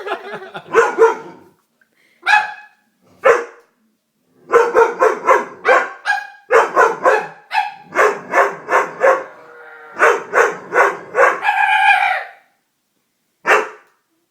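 Dog barking loudly: a few single barks, then a quick run of repeated barks ending in one longer, drawn-out bark, and a last single bark near the end.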